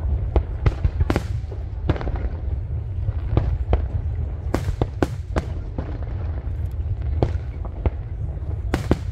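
Aerial fireworks display: a rapid, irregular series of sharp cracks and bangs from bursting shells over a steady low rumble, with the loudest cracks about a second in, around the middle, and near the end.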